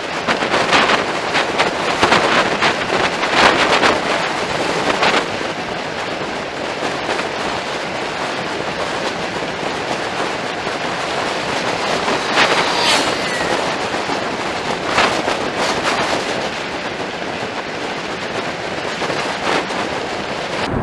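Wind rushing over an action camera's microphone while cycling, a steady loud rushing with gusty surges in the first few seconds.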